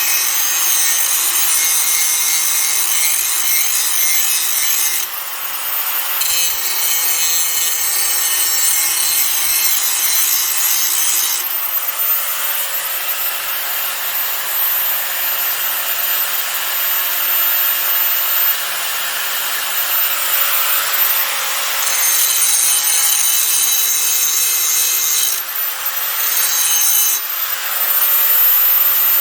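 Hand-held angle grinder with a grinding wheel sharpening the edge of a dull lawn mower blade: a steady, high grinding hiss of the wheel on steel over the grinder's motor whine. The grinding eases off briefly twice, about five seconds in and again near the end.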